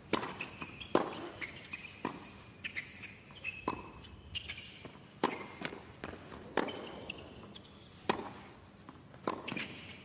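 Tennis rally on a hard court: a ball struck by racquets and bouncing, with sharp hits about once a second, and a few short high squeaks between them.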